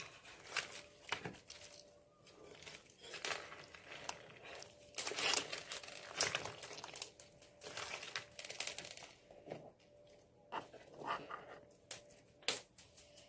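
Colourful 'Lego' slime being squeezed and pressed by hand, giving irregular bursts of crinkly, crackling squishes with short pauses between.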